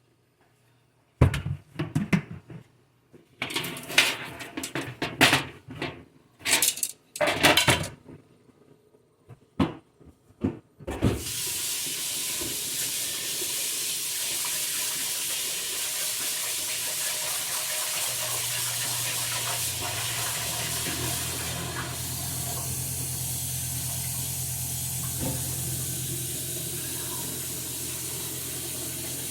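Kitchen clatter of pots and utensils being handled for about ten seconds, then a kitchen tap is turned on and water runs steadily into the sink for the rest of the time.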